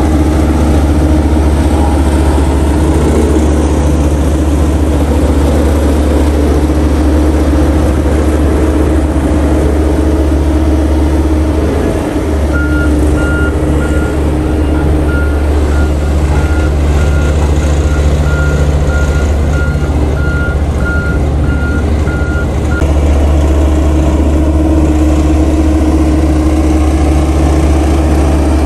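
Sakai SV520DF single-drum vibratory road roller running on gravel base, a loud, steady, deep rumble. From about halfway in, a reversing alarm beeps steadily for about ten seconds while the rumble eases a little, then the rumble comes back up.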